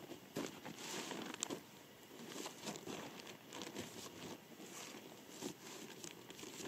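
Plastic tarp crinkling and rustling as it is folded up by hand, in short irregular rustles.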